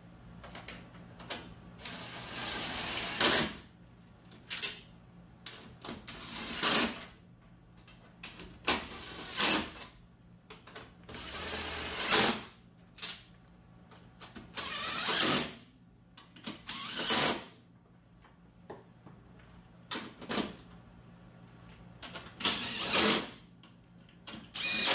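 Cordless power tool running in short bursts, about a dozen separate runs with pauses between them, as the bolts and nuts of a Jeep Cherokee XJ's upper radiator support are run in and tightened.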